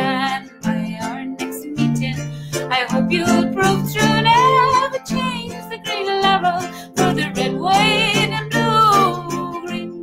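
A woman singing a slow folk song, her held notes wavering with vibrato, to her own strummed ukulele accompaniment.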